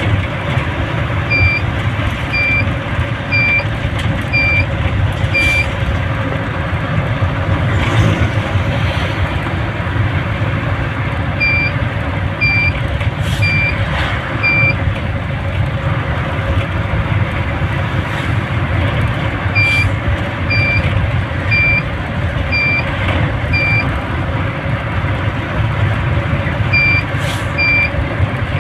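Vehicle engine and road noise while riding, with a short high electronic beep repeating about once a second in runs of four or five, the way a turn-signal or warning buzzer sounds.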